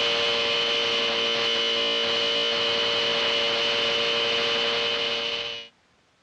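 A loud, steady electrical hum: several held tones over a hiss, which cuts off abruptly near the end.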